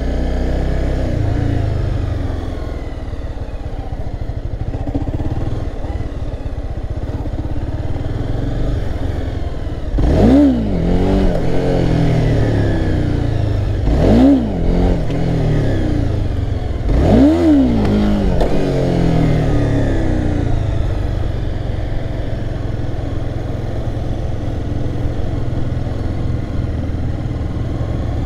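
Honda CBR300R's single-cylinder engine running under way, with three hard revs about ten, fourteen and seventeen seconds in. Each rev is a quick rise and fall in pitch, typical of throttle blips for wheelie attempts.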